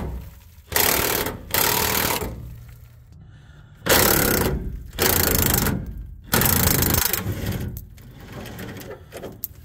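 Impact wrench hammering on a 13 mm fuel-tank strap bolt in about five short bursts, backing the bolt out of the frame.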